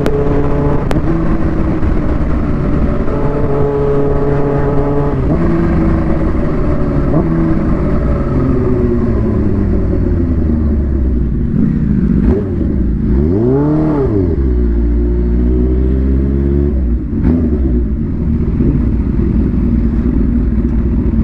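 Supercharged Kawasaki Ninja H2 inline-four through a Vandemon exhaust, running under way with wind noise on the microphone. The engine note holds steady, eases off gradually, then swells up and drops back quickly about two-thirds of the way through before settling lower.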